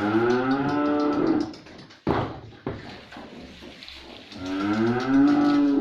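Dairy cows mooing: one long moo dies away about a second and a half in, and a second long moo rises near the end. A single sharp knock comes about two seconds in, between the moos.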